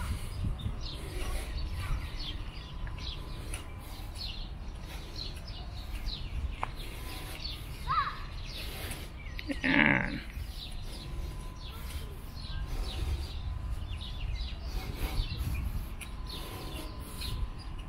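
Small birds chirping and twittering over a low rumble. A brief, louder call or voice sounds just under ten seconds in.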